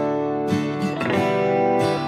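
Background music: acoustic guitar playing, with plucked and strummed notes.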